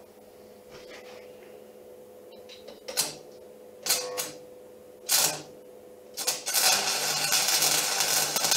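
Stick arc welding on steel: three short sputtering bursts as the electrode is struck, then a steady crackling arc for the last two seconds as the weld runs.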